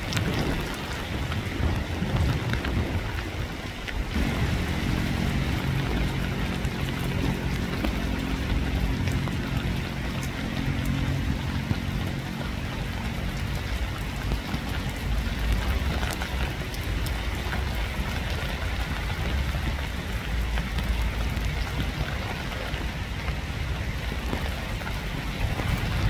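Steady rain falling in an even hiss. From about four seconds in, a low droning hum sits under the rain for around ten seconds, then fades.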